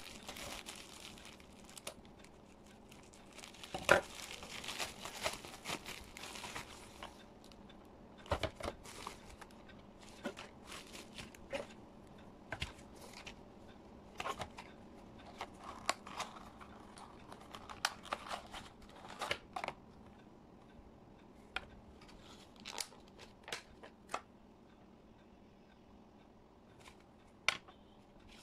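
Scissors cutting open a plastic mailer bag, with plastic crinkling and tearing for the first several seconds. After that come scattered light clicks and taps as a stylus is handled in its card-and-plastic blister pack.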